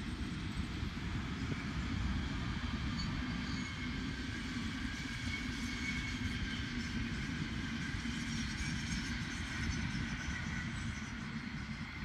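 SBB Re 460 electric locomotive and double-deck passenger coaches passing at speed: steady rolling rumble of wheels on rail with a faint whine, building over the first couple of seconds and then holding.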